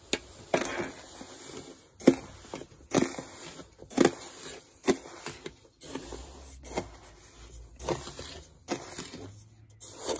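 Wooden spoon and hand scooping dry roasted flour out of a metal tray into a metal pot, a short scooping stroke about once a second.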